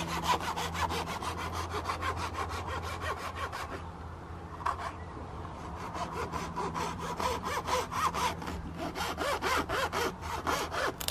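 Small hand saw cutting through a thin wooden dowel with quick back-and-forth strokes, about five a second. The strokes pause briefly about four seconds in, then carry on.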